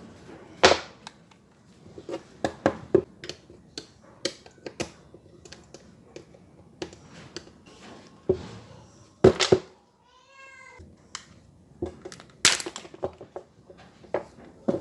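Irregular sharp clicks and knocks of hard objects being handled and set down, the loudest a little under a second in, around nine seconds in and about twelve and a half seconds in. About ten seconds in comes a brief wavering high-pitched cry lasting about a second.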